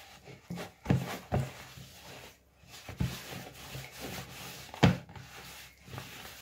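Soft yeast dough being kneaded by hand in a plastic bowl: irregular slaps of the dough with rubbing and scraping in between, the loudest slap about five seconds in.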